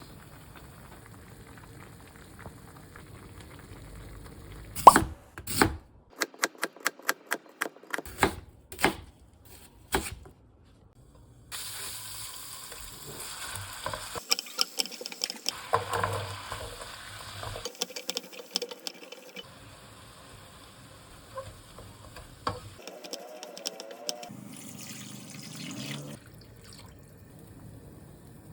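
Kitchen cooking sounds cut together: a series of sharp knocks about five seconds in, then sizzling, stirring and liquid plopping and splashing, with scattered clinks.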